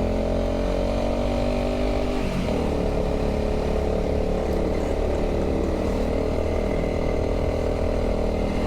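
Honda CRF300 dual-sport motorcycle's single-cylinder engine running under way while riding. The engine note dips and shifts about two seconds in, then runs steady again.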